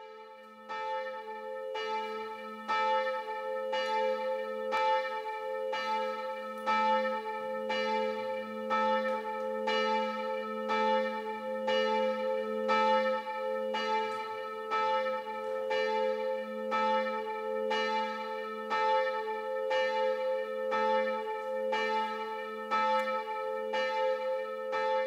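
Church bell tolling steadily, struck about once a second, each stroke ringing on into the next.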